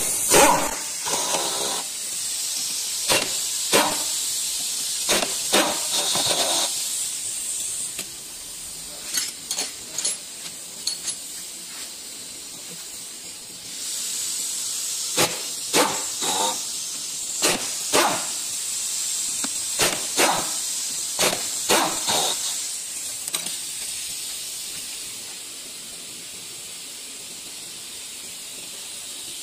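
Pneumatic impact wrench rattling in short bursts as it undoes the bolts around the crankshaft of a Kia Cerato engine block, in two runs of about a dozen bursts each, over a steady high hiss of compressed air.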